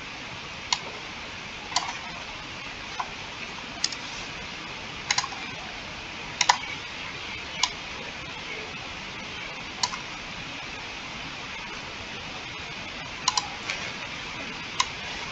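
Computer mouse clicking at irregular intervals, a dozen or so sharp clicks with a few quick double-clicks, over a steady background hiss.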